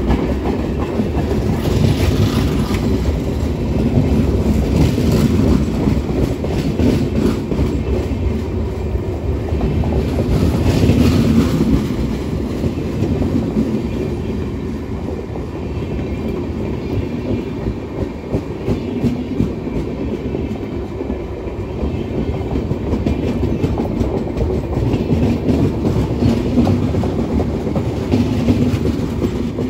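Coaches of the Kashi Express passenger train rolling past close by: a steady, loud rumble with the repeated clickety-clack of wheel sets running over the track.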